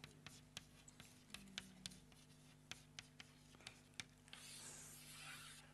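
Near silence: room tone with a faint low hum, scattered faint clicks, and a soft hiss lasting about a second near the end.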